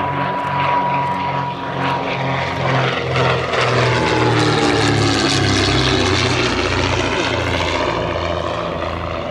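De Havilland DH88 Comet twin-engine racing plane with its two de Havilland Gipsy Queen engines running at power during a low fly-past. The engine note throbs as the two engines beat against each other, and the propeller tone drops in pitch as the plane passes and moves away.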